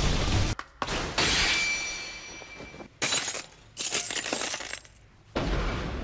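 Anime fight sound effects: a loud rumble cuts off, then a sharp metallic strike rings on with a high tone for about two seconds. Two bursts of shattering and crashing follow as the blade cracks and breaks apart.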